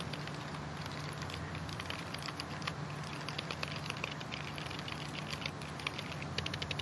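A spoon stirring a thick mayonnaise dip in a small plastic bowl, making many light, irregular clicks and scrapes against the bowl over a steady low hum.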